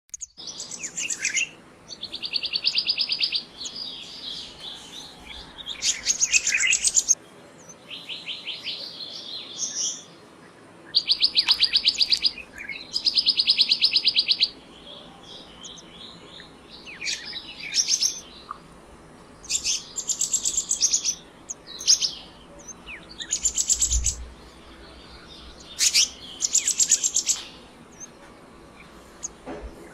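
Black-naped monarch calling: repeated high, rapid trilled phrases, each about one to two seconds long, with short pauses between them.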